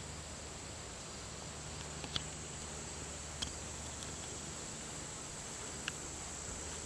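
Faint, steady high-pitched drone of insects, with a few short, faint ticks over it.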